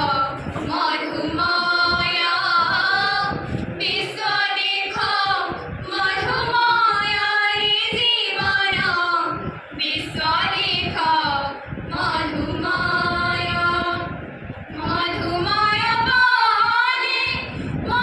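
A group of young women singing an Odia song together into a microphone, unaccompanied, in long wavering phrases with short pauses between them.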